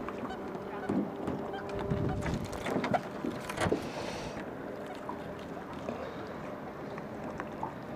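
Small fishing boat on the water: an even wash of water and wind noise, with a few light knocks and a faint steady hum.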